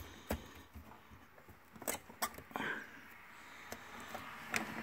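Quiet handling noise: a handful of small sharp clicks with faint scratchy rustling between them, as the plastic current-sensor clamps and their leads are moved about among the panel wiring.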